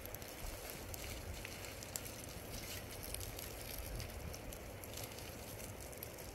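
Burning dry grass and brush crackling, with many small scattered snaps and pops.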